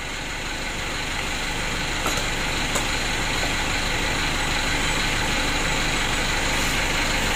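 A machine or motor runs steadily with an engine-like hum, unchanging throughout. Two light clicks come about two and three seconds in.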